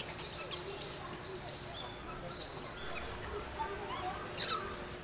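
High-pitched animal calls: a quick series of short chirps that rise and fall, about eight in the first three seconds, then a single falling call about four and a half seconds in.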